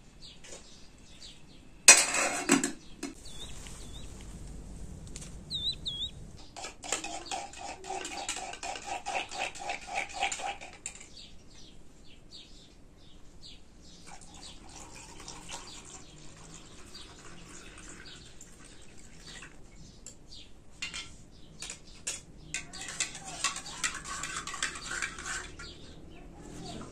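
Dishes and utensils clinking and clattering, with a sharp knock about two seconds in and a few bird chirps. Near the end comes a longer stretch of clattering and liquid being poured into a metal cup.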